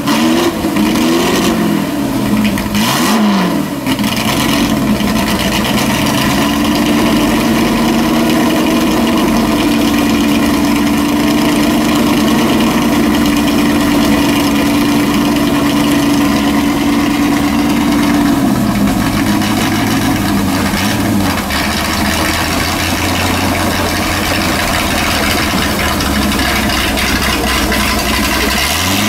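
Ford GT40 Mk II's 7-litre 427 V8 running through open exhaust pipes, with the rear wheels spinning. It is blipped up and down a few times, then held at a steady higher speed, then drops in steps to a lower steady speed, and it rises again at the end.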